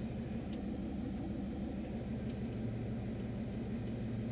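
Turbocharged Chevrolet Silverado's engine and dual side-exit exhaust heard from inside the cab, running steadily at low speed with a low drone that grows a little stronger about two and a half seconds in.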